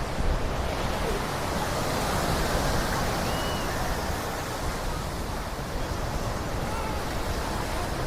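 Surf washing onto the beach, a steady rush of waves with some wind on the microphone.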